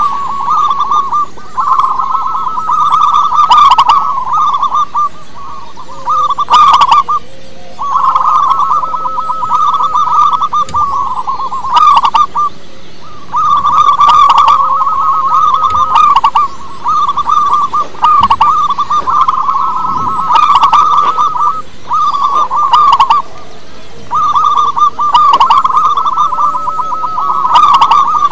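Zebra dove (perkutut) cooing: bouts of rapid, stuttering notes a few seconds long, one after another with short pauses.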